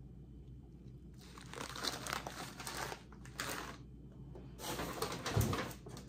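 Plastic bag of rice crinkling as it is handled and set down among other groceries, in several bursts of rustling, with a dull thump about five seconds in.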